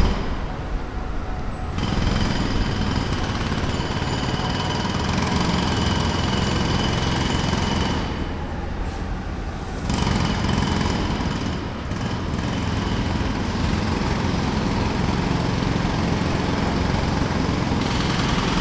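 Jackhammer hammering in long runs, stopping briefly near the start and again about eight seconds in, with a low engine running steadily underneath.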